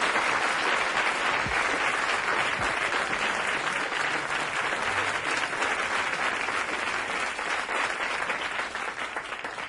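Audience applauding, a dense, steady clapping that fades a little near the end.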